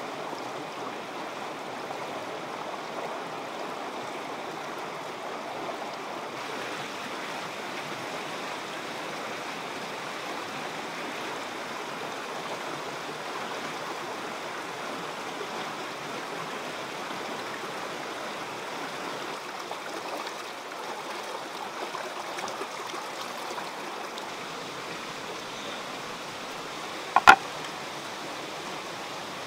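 Shallow stream running over rocks, a steady rush of water. Near the end, a sharp double knock on a wooden chopping board.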